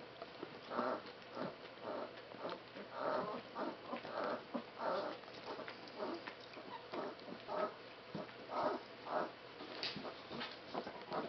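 Shiloh Shepherd puppies and adult dogs making many short, irregular snuffling and squeaking sounds as the adult noses the pups.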